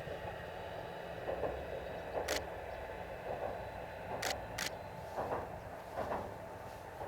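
KiHa 120 series diesel railcar running with a steady low hum, soft knocks coming about once a second. Sharp camera-shutter clicks sound about two seconds in and twice more around four seconds in.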